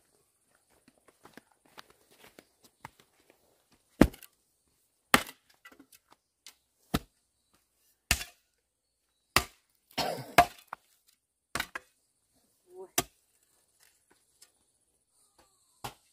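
Wood being chopped: about nine sharp strikes at irregular intervals of roughly a second, with a quick cluster of smaller knocks about ten seconds in.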